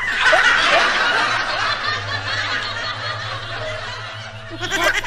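Breathy laughter with a few short falling yelps, fading over the first few seconds, over a low steady hum. A brief cluster of sharp sounds comes near the end.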